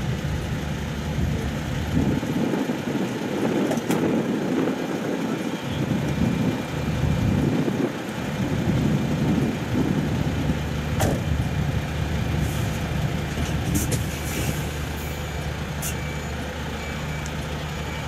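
Fire truck engine running steadily at idle, a low even hum, while its pump feeds the hoses. A rushing noise swells and fades over it between about two and ten seconds in, with a few sharp clicks.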